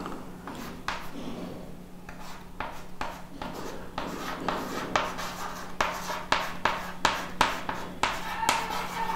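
Chalk writing on a chalkboard: a run of short scratches and taps as letters are written. The strokes come faster and sharper in the second half.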